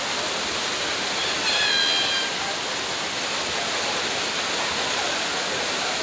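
Steady rushing of a waterfall pouring over rocks into a shallow stream. A brief high-pitched call sounds over it about a second and a half in.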